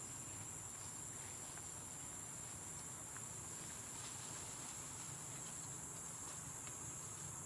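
Steady, high-pitched insect chorus, an unbroken drone, with a few faint clicks.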